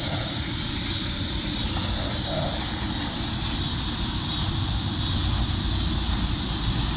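Steady outdoor background noise: an even hiss with a low rumble underneath, and no distinct knocks or calls.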